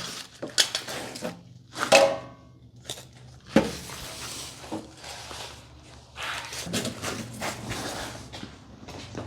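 Shop handling noise: a few knocks and a ringing metal clank, then scraping and shuffling as steel and welding cables are moved about.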